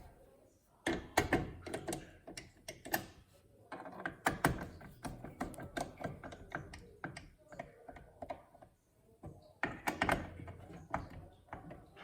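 Screwdriver driving the spring-loaded thumbscrews of a CPU cooler down onto its mounting posts: irregular small clicks, taps and knocks of metal and plastic, with a few louder knocks scattered through.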